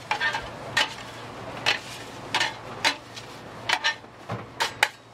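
Metal spatulas clanking and scraping on a flat stainless-steel griddle as rice noodles are tossed and stir-fried, with about ten sharp strikes at irregular intervals over a low steady hum.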